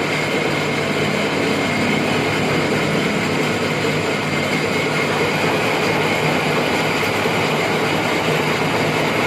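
Metal lathe running steadily with its change gears set for 8 threads per inch, cutting a thread on a one-inch-thick bolt; an even mechanical hum with a steady whine over it.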